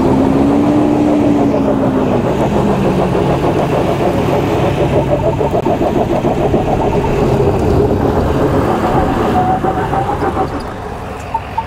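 Ford F-350 Super Duty's Power Stroke turbo-diesel V8 working hard in 4-low as the heavy dually climbs a loose hill, its revs rising and then easing, with the tires spinning and scrabbling on loose dirt. Near the end the engine drops back and a rapid series of short electronic beeps starts.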